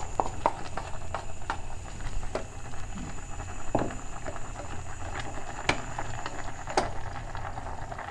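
Wooden spatula scraping garlic out of a bowl into an aluminium pot, then stirring boiling pork leg. Irregular scrapes and sharp knocks of wood against the metal pot, a few of them louder.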